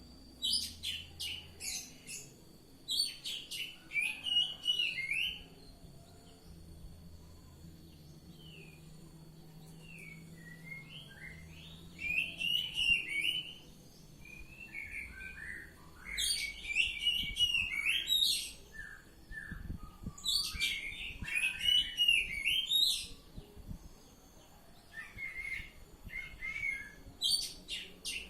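Oriental magpie-robin (kacer) singing loud, varied song phrases of clear whistles mixed with harsh, scratchy notes. The phrases come in bursts a few seconds long, with quieter pauses between them.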